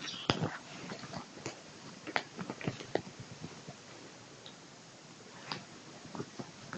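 A tabby kitten grappling with a cloth sleeve, clawing and biting at it: irregular sharp scratches and clicks of claws and teeth on fabric, busiest in the first three seconds.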